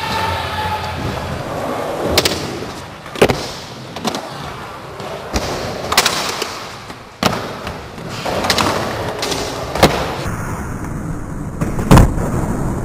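Skateboard wheels rolling over ramps, broken by repeated sharp clacks and slaps of the board hitting and landing, about nine in all, with the heaviest thump near the end.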